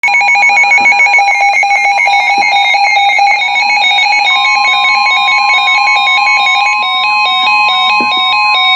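Weather radio emergency alert tones: a fast, evenly pulsing electronic beeping on several fixed pitches, with a steady high-pitched alarm tone that becomes continuous about halfway through. These tones announce an emergency alert, here a tornado warning.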